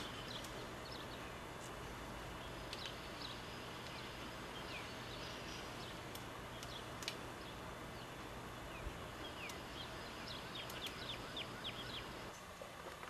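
Outdoor background noise with a steady low hum, and small birds chirping: short, high chirps scattered throughout, with a quick run of them near the end. The hum drops away shortly before the end.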